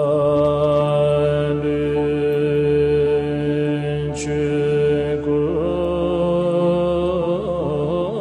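Buddhist mantra chanting: a deep voice holds one long steady note over a low drone, its pitch wavering briefly a little past halfway and again near the end.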